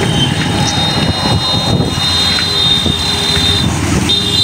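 Wind rushing over the microphone and engine and traffic noise while riding through a town street among motorcycles, with a thin, steady high whine that breaks off briefly near the end.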